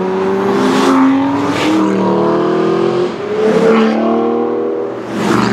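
A performance car engine revving hard. Its pitch climbs and drops back in steps, with short sharp cracks from the exhaust about four times.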